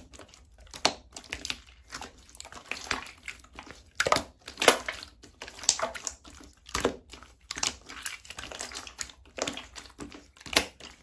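Hands squishing and working a clear slime: irregular runs of sticky crackles, clicks and small pops, loudest about four to five seconds in.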